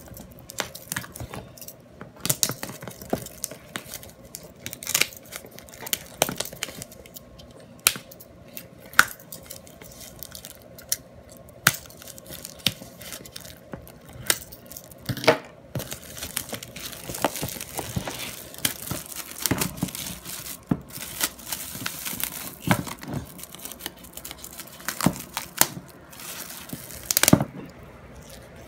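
Clear plastic shrink wrap being torn and crumpled off a cardboard box: a long, irregular run of crackles and sharp snaps.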